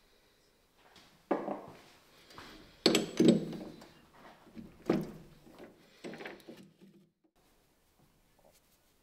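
Several hard knocks, about five in all, each with a short ringing tail: steel parts and tools being handled at a metal lathe's chuck.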